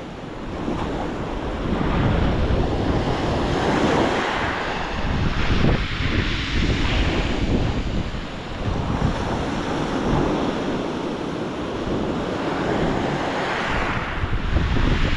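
Strong wind buffeting the microphone with a heavy low rumble, over waves breaking on the shore; it swells and eases in gusts, dipping about halfway and rising again near the end.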